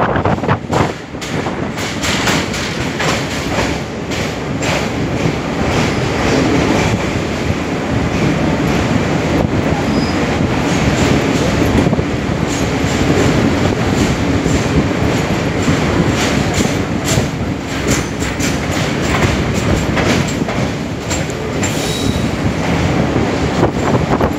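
Train running on the rails: a steady loud rumble of wheels on track, with many quick clicks and clacks as the wheels pass over rail joints.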